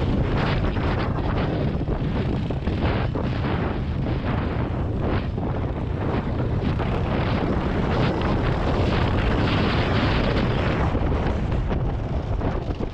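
Dirt bike engine running while riding, heavily buried in wind rumble buffeting the helmet camera's microphone.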